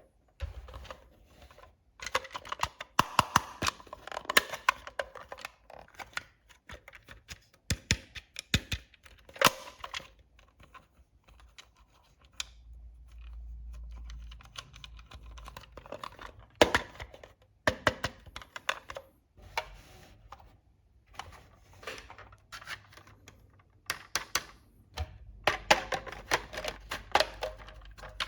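Small toy kitchen pieces being handled, clicked together and set down: irregular runs of sharp clicks and taps, with a low rumble a little before the middle and again near the end.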